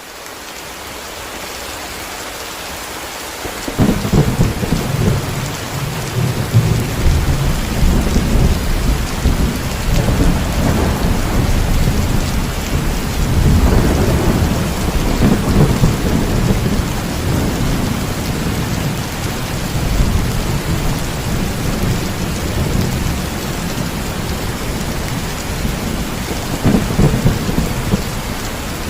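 Steady rain fading up into a thunderstorm: a long, deep rumble of rolling thunder breaks in about four seconds in and keeps rolling over the rain, swelling several times and once more near the end.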